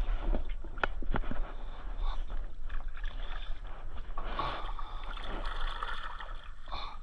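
Water splashing and sloshing around a kayak being paddled on a river, with a few sharp knocks, such as a paddle striking the hull, in the first second and a half.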